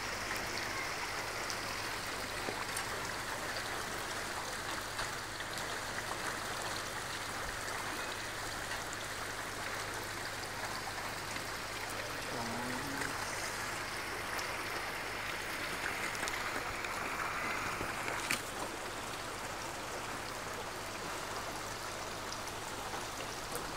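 Fast-flowing flash floodwater rushing steadily through a flooded street, an even churning wash of water, with one sharp click about eighteen seconds in.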